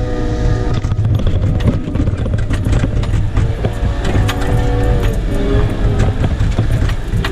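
Cat 914G wheel loader's diesel engine running, heard from inside the cab, with a whine that fades about a second in and comes back in the middle, and many clanks and rattles throughout.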